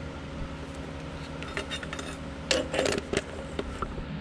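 A few light metallic clinks and knocks, loudest in a quick cluster about two and a half to three seconds in, as metal parts are handled. A steady hum runs underneath.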